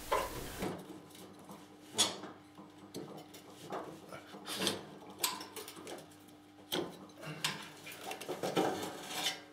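Steel bar and mower-deck pulley hardware clinking and knocking as the spring-loaded belt tensioner pulley is levered aside and the drive belt looped onto it: a scatter of light, irregular metallic clinks and taps.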